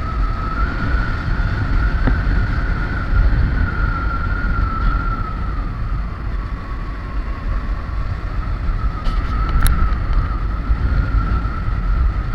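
Motorcycle being ridden at a steady cruise: low engine and road rumble with wind rush on the microphone. A steady high whine drifts slightly in pitch, and there is one sharp click about ten seconds in.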